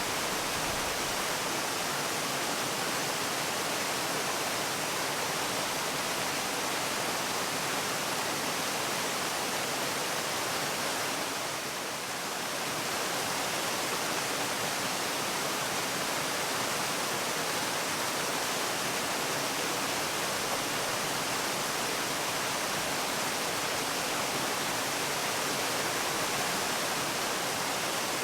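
Waterfall: a steady, even rush of falling water, dipping slightly for a moment about twelve seconds in.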